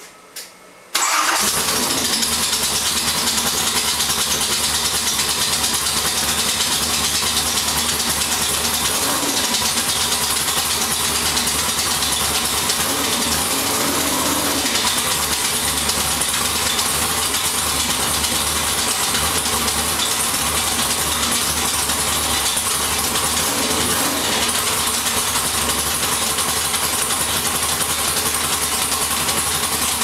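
A 302 small-block Ford V8 with open headers catching about a second in and then running steadily and loudly.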